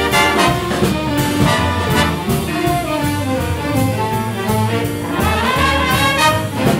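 A jazz big band playing live: saxophones, trumpets and trombones sounding together over a steady drum beat.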